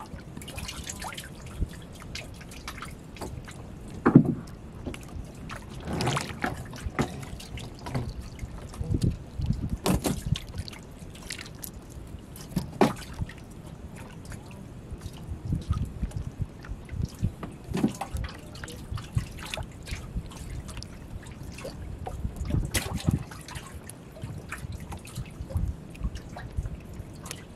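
Water splashing and dripping at the side of a small wooden boat as a handline is pulled in hand over hand and small sardines are drawn out of the water, with irregular splashes and knocks, the sharpest about four seconds in.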